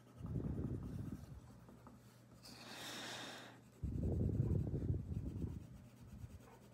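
Colored pencil shading on paper: rubbing strokes for about the first second and again from about four seconds in, with a softer hiss between.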